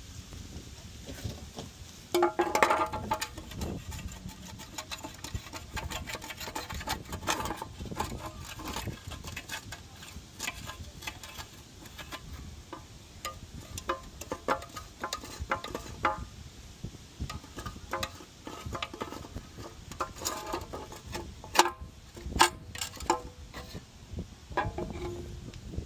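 Irregular clinks, knocks and scrapes of metal car parts and tools being handled. A few ring briefly, the loudest clank about two seconds in. A low wind rumble runs on the microphone underneath.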